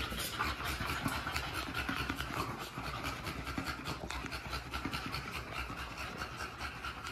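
Micro bully dog panting hard and fast, close up: a steady run of quick, even breaths, several a second.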